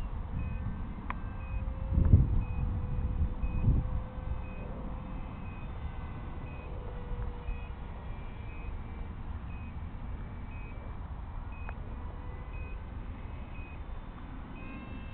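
Wind rumbling on the microphone, with two strong gusts about two and four seconds in. Under it, a short high electronic beep repeats about twice a second.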